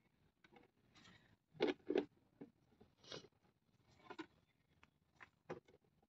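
A hand digging and sifting through loose potting soil and dry, stringy roots, feeling for sweet potato tubers: short, faint crunching and scraping sounds, the two loudest close together about one and a half to two seconds in, with smaller ones after.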